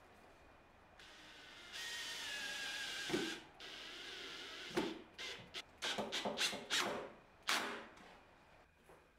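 Cordless drill-driver driving screws into a wooden post. A steady motor whine runs for over a second and ends in a knock about three seconds in. Then come about ten short trigger bursts over the next three seconds.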